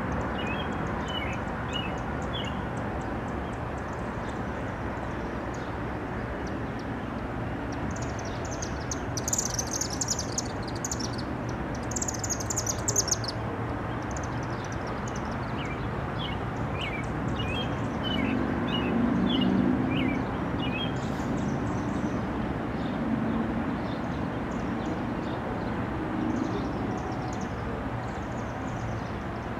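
Songbirds chirping and calling in scattered short notes, with two brief bursts of high-pitched song about ten and twelve seconds in, over a steady low rumble.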